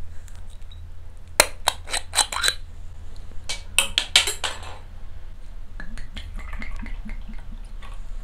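Sharp clinks and clatters of glass and metal tableware, in two quick runs in the first half, then softer handling noises after about six seconds.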